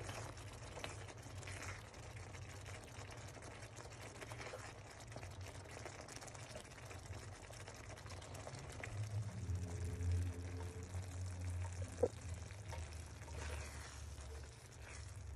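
Thick creamy chicken and vegetable sauce simmering in a pan, bubbles popping with small wet plops over a low steady hum; one sharp click about twelve seconds in.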